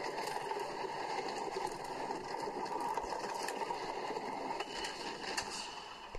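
Megafobia wooden roller coaster train running fast along its wooden track: a steady rushing rumble with scattered small clacks, easing off slightly near the end.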